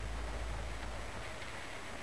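Rain falling steadily, with a low thunder rumble that dies away about a second in.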